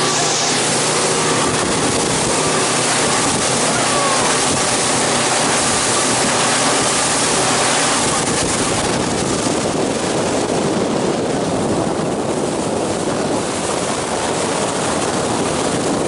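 Motorboat under way: a steady engine hum under a loud rush of water along the hull and wind. The engine hum fades about halfway through, leaving mostly the water and wind rush.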